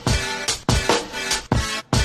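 Background music: an electronic hip hop beat with heavy kick drum hits and no rapping.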